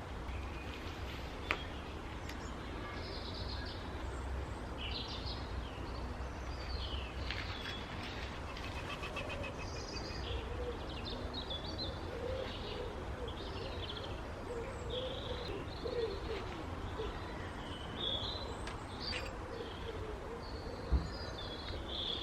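Small birds chirping in short high calls throughout, with a lower cooing call, like a pigeon's, through the middle. Underneath runs a steady low background rumble, and there are two sharp clicks, one near the start and one near the end.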